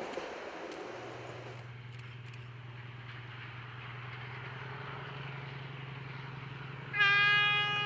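A narrow-gauge train's running noise fades away in the first second or so, leaving a steady low diesel engine hum. Near the end a narrow-gauge diesel locomotive sounds a loud, sustained horn.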